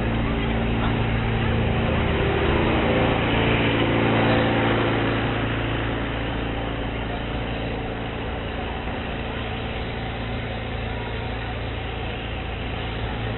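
Street-fair crowd hubbub with a steady low mechanical hum underneath, heard through a cheap, noisy spy-camera microphone that cuts off all the treble. The noise swells a little a few seconds in, then eases.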